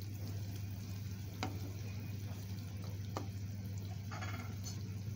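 A spatula stirring fish pieces through curry in a clay pot, with two light ticks of the spatula against the pot, about a second and a half and three seconds in, over a steady low hum.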